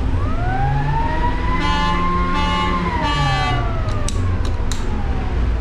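A siren winding up over about a second, holding its pitch, then winding slowly down. A horn-like pitched blast sounds with it in the middle, over a steady low rumble.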